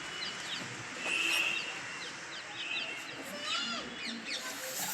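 Birds chirping in short, quick high calls scattered throughout, over faint background voices.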